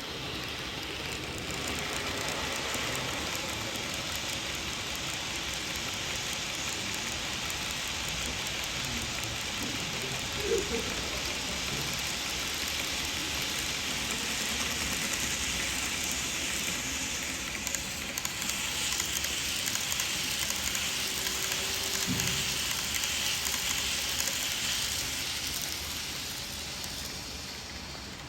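N-gauge model freight train running along the layout's track: a steady rolling rattle of small wheels on rail that builds about two seconds in and fades near the end, with a brief knock about ten seconds in.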